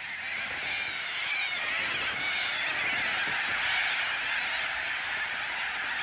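A large flock of corellas calling all at once: a steady din of many overlapping calls.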